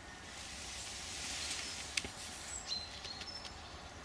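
Woodland birds calling with several short, high whistled notes in the second half, over a soft hiss. A single sharp click sounds about two seconds in.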